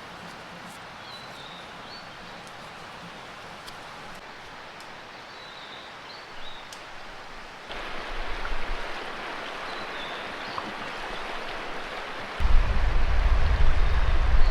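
Mountain stream running steadily over rocks, a constant hiss of water that grows louder about halfway through. Heavy wind buffets the microphone with a low rumble near the end, and a few faint high chirps come through the water noise.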